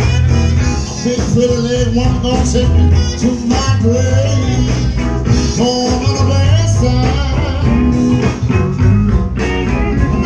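Music with a singing voice and guitar over a strong bass line.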